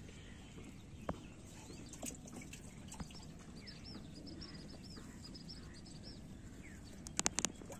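Quiet outdoor ambience over a waterlogged rice field. A bird sings a rapid run of short, high chirps through the middle, and near the end there is a quick burst of four or five sharp clicks, the loudest sound here.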